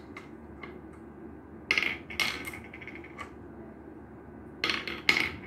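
Glass marbles clicking and clinking as a hand picks them up and drops them one at a time into the hollowed pits of a wooden Gurpale (mancala-style) board, in two quick clusters of clicks, about two seconds in and again near the end.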